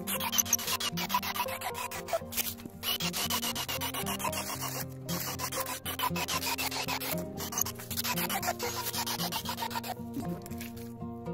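Cordless drill boring spawn holes into an oak log for shiitake inoculation: the bit cutting through the wood in spells of about two seconds, with short breaks between holes, stopping near the end. Soft background music with sustained notes plays underneath.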